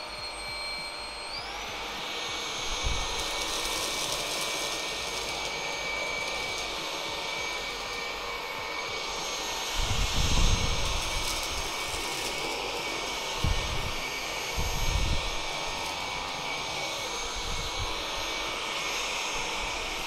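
Cecotec Conga Rockstar 1500 cordless stick vacuum, with its brushless motor on medium power and the motorized floor brush fitted, running while it picks up spilled salt, ground coffee and muesli: a steady high whine over an airy rush. The whine steps up in pitch about a second and a half in and then holds, with a few low thumps in the middle.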